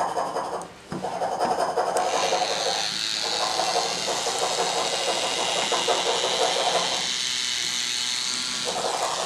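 Small battery-powered K'NEX motor switched on about a second in and running with a steady electric whir, a higher whine joining it a second later, while the paintbrushes on its plastic wheel rattle and scrape over the paper. The rattle stops briefly near three seconds and again for almost two seconds near the end.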